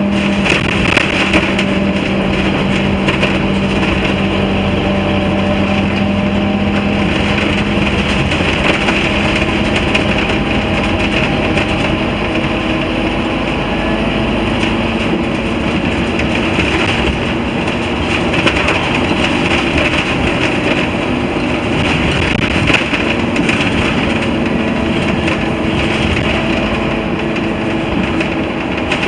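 Scania N230UD Omnicity bus under way, heard from inside the passenger saloon: its five-cylinder diesel engine running, with road noise and interior rattles throughout. A steady engine hum fades about seven seconds in and returns in the last few seconds.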